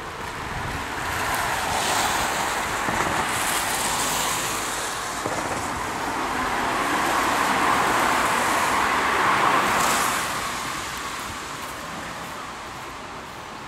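Cars passing on a wet road, tyres hissing on the wet surface. The sound swells twice, once about a second or two in and again in the middle, louder the second time, then fades.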